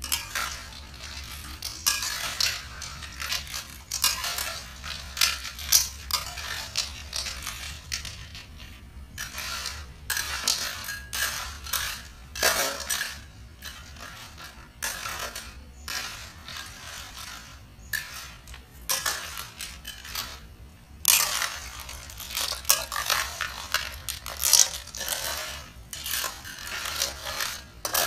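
Dense, irregular clicking and clattering of small hard objects over a steady low hum, thinning out in the middle and growing busier again in the last third.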